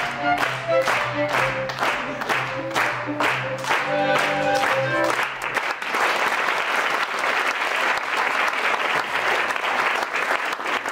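Folk band of violins and double bass playing a lively tune, with sharp claps falling evenly on the beat; the music stops about five and a half seconds in and audience applause takes over.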